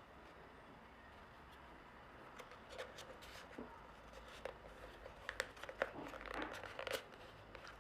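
Paper being folded and creased by hand: faint crinkles and crackles starting about two and a half seconds in, busiest near the end.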